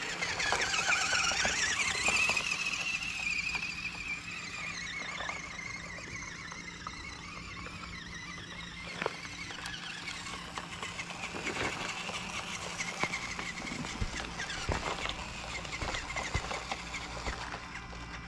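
Small RC rock crawler's electric motor and gearbox whining, loudest at the start, then falling in pitch and fading as it drives away. Its tyres tick and crunch over gravel.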